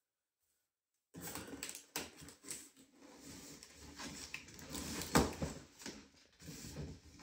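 Silent for about the first second, then a cardboard scooter box being handled and opened by hand: rustling, scraping and irregular knocks, the loudest knock about five seconds in.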